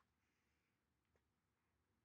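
Near silence: room tone, with one faint tick about a second in.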